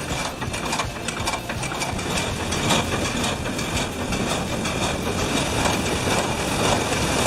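Water-powered sawmill machinery running, a continuous clatter of repeated knocks over a steady rushing noise.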